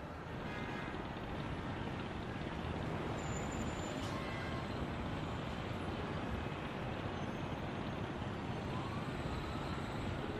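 City traffic ambience: a steady hum of traffic, with a faint distant siren rising and falling near the end.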